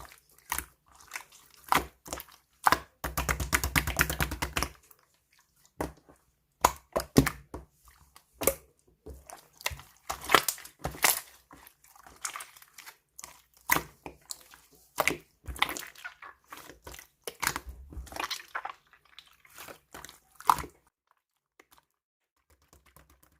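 Hands squishing, pressing and poking slime, making irregular sticky clicks and pops, with a dense run of crackling about three to five seconds in.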